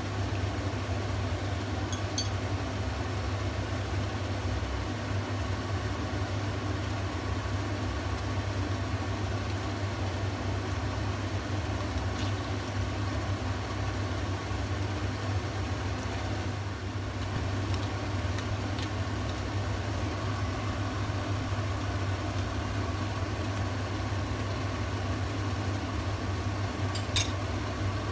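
Steady low hum of a running kitchen appliance, with a few faint clicks of a spoon against a plastic measuring cup as sauce is stirred.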